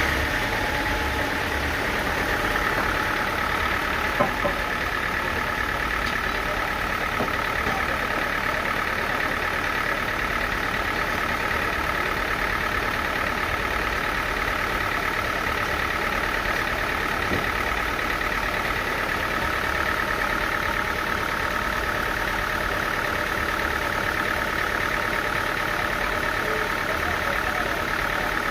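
Sawmill machinery running steadily, a continuous mechanical hum with a steady high whine from about two seconds in and one sharp knock about four seconds in.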